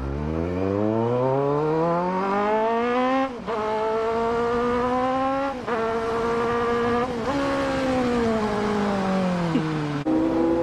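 Kawasaki Z900's inline-four engine pulling hard: its pitch climbs, breaking briefly for upshifts about three and a half, five and a half and seven seconds in, then falls as the throttle is rolled off. Near the end the note changes abruptly to a steadier, lower running.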